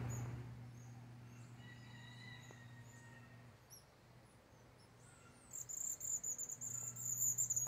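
Outdoor nature sound: scattered faint bird chirps over a low steady hum, then from about five and a half seconds in a loud, high-pitched, rapidly pulsing insect trill that runs on to the end.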